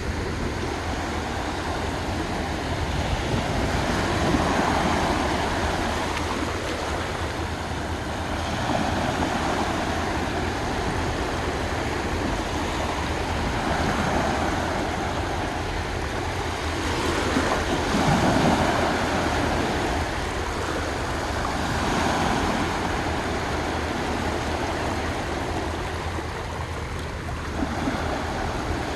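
Small sea waves washing onto a sandy beach, the surf swelling and fading every four or five seconds over a steady low rumble.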